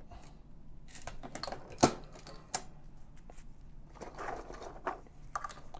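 MEC 9000G progressive shotshell reloading press being cycled by hand: a run of metallic clicks and clacks from the mechanism, with a sharp clack about two seconds in and another shortly after.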